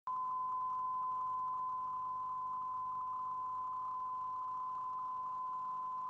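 Steady 1 kHz line-up test tone, one unbroken pitch, the reference tone that accompanies colour bars at the head of a video tape for setting audio levels.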